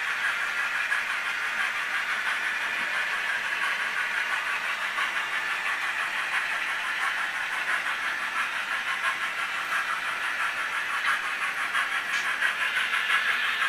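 Model trains running on a layout: a steady whir of small locomotive motors and gearing, with a fast, fine clicking from wheels on the track.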